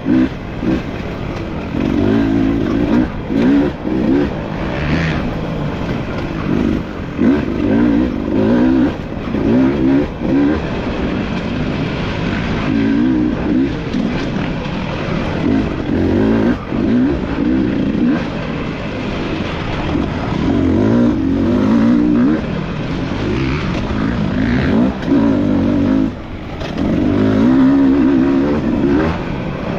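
Dirt bike engine being ridden hard off-road, its pitch rising and falling over and over with the throttle, with scattered knocks.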